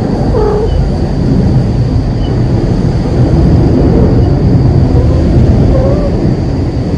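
Loud, steady low rumbling noise, with a few faint short cat mews about half a second in and again around four and six seconds, and a thin steady high whine.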